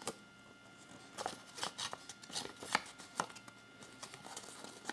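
Paper insert from a Kinder Surprise egg handled between the fingers: soft, irregular rustles and small crinkling clicks.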